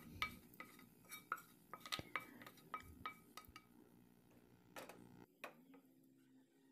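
A metal spoon clinking and tapping against a pan, about a dozen light clinks with a short ring over the first few seconds as the last fried onions are scraped out, then two softer knocks.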